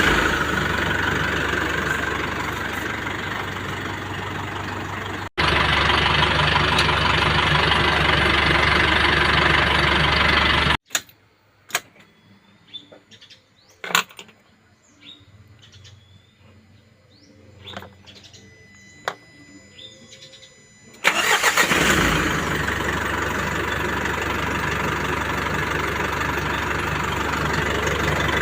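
Isuzu NMR truck's 4JJ1 four-cylinder turbodiesel idling steadily. It stops about 11 seconds in, leaving birds chirping and a few clicks for about ten seconds. Then the engine starts again and settles back into an idle.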